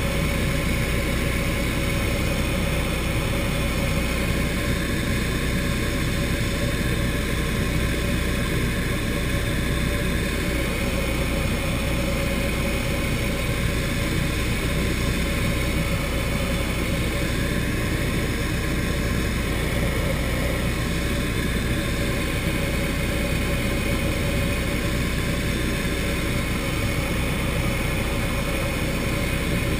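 Turner T40 light aircraft's piston engine and propeller droning steadily in cruise flight, heard from inside the cockpit.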